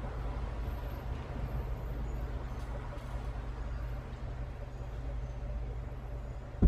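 Steady low engine hum heard inside a car cabin, like a car idling while parked, with one sharp knock right at the end.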